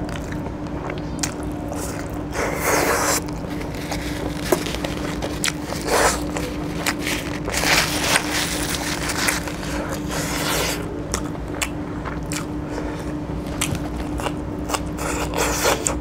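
Close-miked eating sounds: biting and chewing chicken pieces, with many small wet clicks and smacks. There is a stretch of rustling in the middle as a paper tissue wipes the mouth, and a low steady hum underneath.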